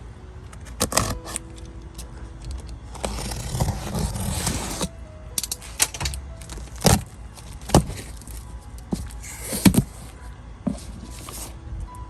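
Packaging being handled and opened: a run of rustling and crinkling about three seconds in, with several sharp taps and clacks scattered around it.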